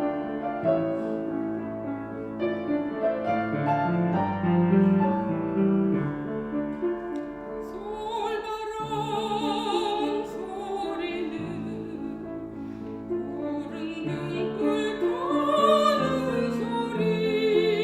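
Korean art song for soprano and piano: a piano introduction, then the soprano enters about halfway through, singing with a wide vibrato over the piano accompaniment.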